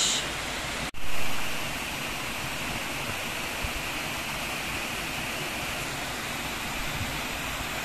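Small woodland waterfall cascading down stepped rock slabs: a steady rush of falling water, with a momentary dropout about a second in.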